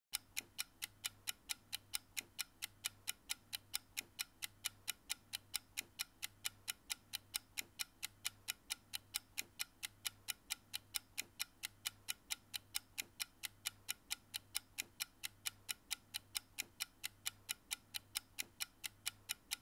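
Clock-ticking sound effect counting down the answer time, sharp regular ticks at about four a second.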